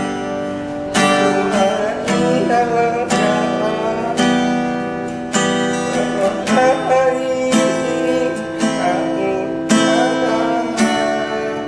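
Acoustic guitar strummed in chords, with a fresh strum roughly every second and the chords changing as it goes.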